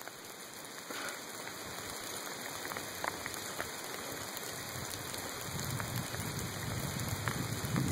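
Heavy rain falling steadily, with scattered single drops ticking close by. A low rumble rises in the last couple of seconds.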